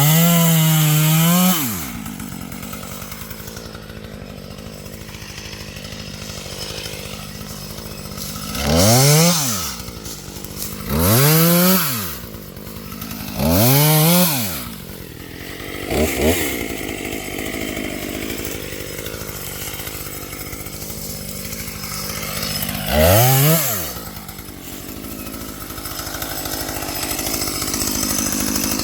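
Husqvarna T540XP two-stroke top-handle chainsaw idling and being revved up to high speed about six times, each time dropping back to idle; several revs hold briefly at the top, as in test cuts with its newly fitted chain.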